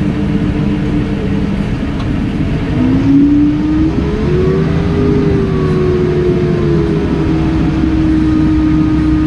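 Case Puma tractor's diesel engine running under load, revving up about three seconds in, then easing back slightly and holding steady.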